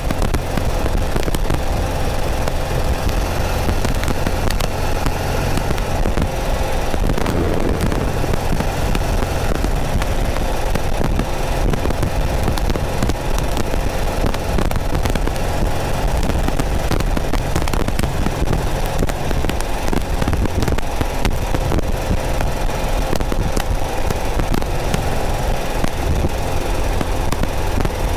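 Porsche 914's 2.0-litre air-cooled flat-four running steadily at a cruise, heard from behind the cabin, with wind noise from the open top and crackling static on the microphone.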